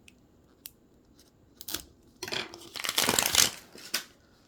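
Plastic packaging of Mini Brands miniatures being handled and torn open: a few small sharp clicks, then a loud stretch of crinkling and tearing about halfway through, and one more click near the end.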